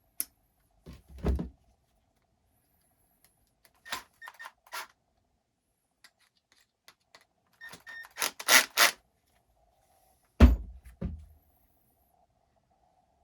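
Hands handling parts of an XTM Mammoth RC truck during reassembly: scattered light clicks and rattles of small parts, with a dull knock about a second in and a sharper knock with a low thump near the end as a piece is set down or pressed into place.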